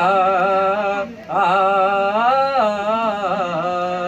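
A male qawwali singer's voice holding long, ornamented notes. It breaks off briefly about a second in, then settles into one long steady note near the end.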